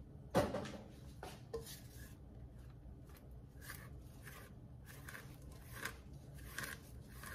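Spatula scraping down the sides of a mixing bowl of cookie dough: a sharp knock about half a second in, then a run of short scraping strokes, roughly two to three a second.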